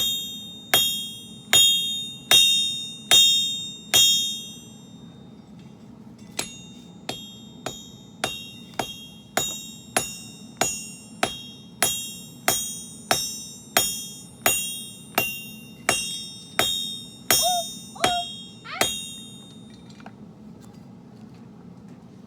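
Hand hammer forging steel on an anvil: a steady rhythm of ringing strikes, about six blows, a short pause, then a longer run of quicker blows that stops near the end, over a steady low hum.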